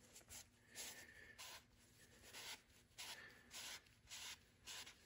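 Faint rubbing of a cloth rag in about eight short, quick wipes, cleaning lapping compound off a freshly lapped valve and seat in a cylinder head.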